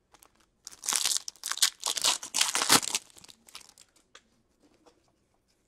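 Foil trading-card pack wrapper crinkling and tearing for about two seconds, then a few faint ticks as cards are handled.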